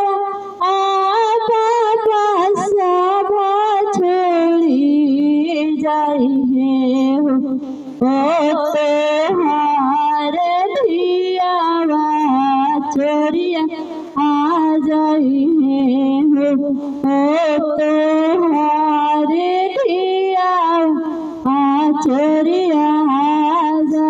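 A woman singing a Hindi folk wedding song (beti vivah geet) solo, in long held, wavering melodic phrases with short breaks between them.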